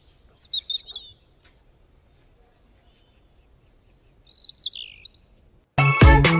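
Small birds chirping in short, quick twittering phrases: a flurry in the first second and another about four to five seconds in, with near quiet between. Loud backing music cuts back in near the end.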